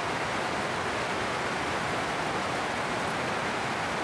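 Heavy rain pouring down on garden foliage and ground: a steady, unbroken hiss.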